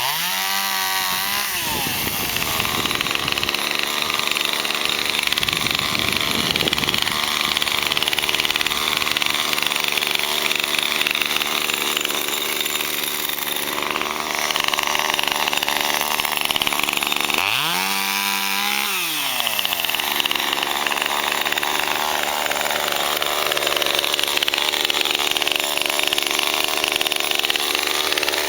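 Chainsaw cutting up the trunk of a fallen peppermint tree. It revs up at the start and again about eighteen seconds in, then drops back, and runs on steadily through the cut in between.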